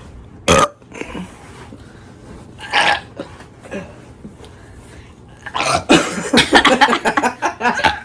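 A person burping on purpose: a short loud burp about half a second in, another just before three seconds, then a long, loud burp made of many quick pulses from about five and a half seconds on.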